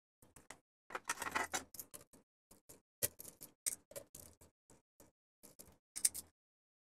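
Short clicks, taps and scrapes from a screwdriver and small plastic parts being handled while a small fan's terminal block is wired, with a longer scratchy stretch about a second in.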